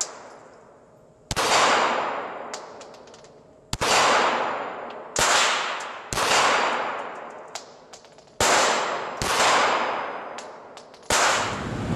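Glock pistol firing seven single shots at uneven intervals inside an indoor shooting range, each crack followed by a long echoing tail of hall reverberation.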